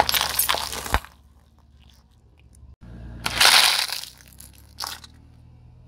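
A car tyre rolls over plastic dessert cups and crushes them with a loud crackling crunch lasting about a second. After a cut, a second crunch comes about three seconds in as the tyre flattens a pink plastic item. A low engine hum runs underneath.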